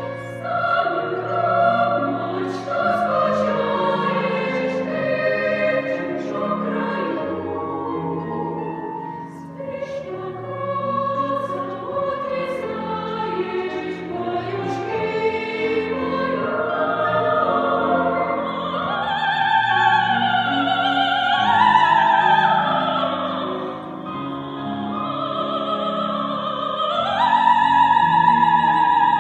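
Choir singing with a female soprano soloist. In the second half her line climbs to long high notes sung with vibrato.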